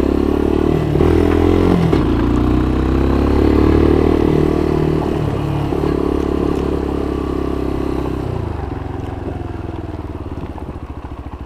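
Motorcycle engine running under throttle as the bike rides along, its pitch rising and falling. About eight seconds in it drops back to a slow, even idle.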